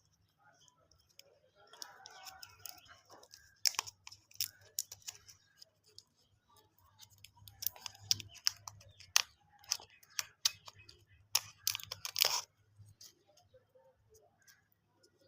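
Plastic lollipop wrappers crinkling and tearing as they are handled and opened by hand. The sound comes as irregular sharp clicks and rustles in three bouts, loudest near the end around twelve seconds in.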